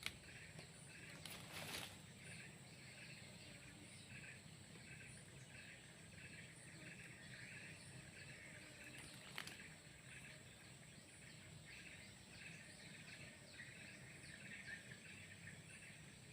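Faint outdoor ambience with small birds chirping over and over in short, quick calls, and a couple of soft clicks.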